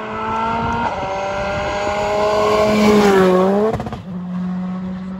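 Škoda Fabia Rally2 rally car's turbocharged four-cylinder engine at high revs on a gravel stage, its pitch jumping up about a second in and climbing, then dipping and swinging back up before cutting off at about four seconds, when a quieter, steadier engine note takes over.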